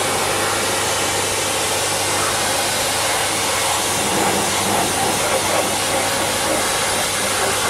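Pressure washer running steadily, its high-pressure water jet hissing as it sprays onto the bare sheet metal of a car's engine bay, with a steady motor hum beneath.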